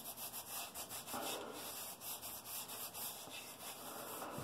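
A hand rubbing over a freshly shaved scalp, the short stubble brushing under the palm in repeated, uneven strokes.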